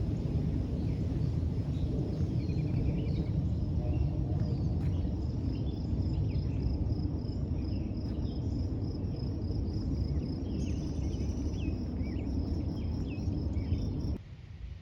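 Outdoor woodland ambience: birds chirping over a loud, steady low rumble, joined about a third of the way in by a high, evenly pulsed trill. The rumble and trill cut off abruptly just before the end.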